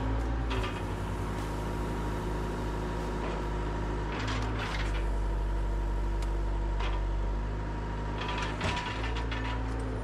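Bobcat 853 skid steer's engine running steadily while its bucket hydraulics work, its pitch shifting a little as the load changes. A few short scrapes and clunks of the steel bucket on ice and gravel come through, the plainest near the end.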